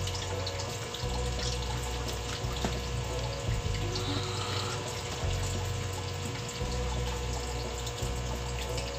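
A serving spoon scooping stir-fried vegetables from a pan onto a plate, with a few light clinks, over a steady rushing noise and a low hum.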